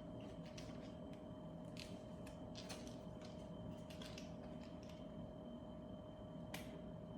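Faint, scattered clicks and crinkles of plastic retail packaging being handled and picked at while trying to get an SD card out of it.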